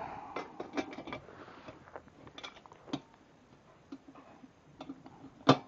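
Screwdriver turning a screw into the metal rail of a table saw stand: scattered light metallic clicks and scrapes, with one sharp clink near the end. The screw is being driven only far enough to engage its lock nut.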